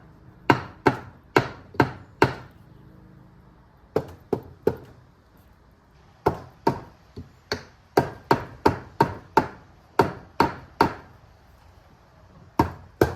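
Repeated hammer blows on a seized part of a 2006 YZ250 two-stroke engine, struck to free it. The blows come in bursts of quick strikes with short pauses, the longest run in the middle.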